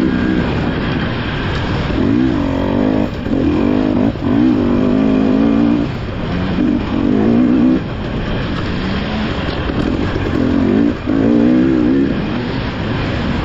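Off-road dirt bike engine heard from on board, the revs rising and falling as the throttle is worked, with several brief drops where the throttle is rolled off.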